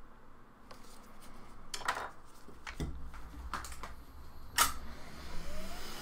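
Several sharp clicks and light metal taps of soldering tools being handled as a soldering iron presses desoldering braid onto a circuit board's pads, the loudest tap about four and a half seconds in. A steady hiss builds near the end.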